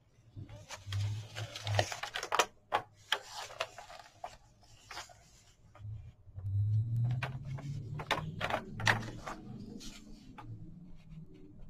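Thin paper pages of a coloring book being turned and handled: dry rustling and crinkling with many small sharp clicks, coming in several bursts.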